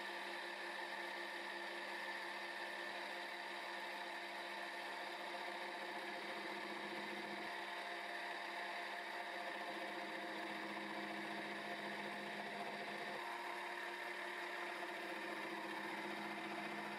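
X3 milling machine running steadily as its home-made 0.6-module involute gear cutter mills teeth into a mild steel gear blank: a continuous motor and spindle hum made of several steady tones. The tone shifts slightly twice, about 7 s and 13 s in.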